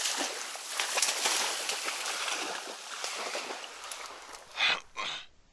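Splashing and rustling in water and reeds, fading over a few seconds, with two short louder splashes near the end. This is a hunting dog wading out through the reeds to retrieve a shot duck.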